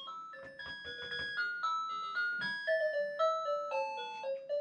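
Small electronic keyboard played live: a quick melody of single notes, about three a second, as an intro theme.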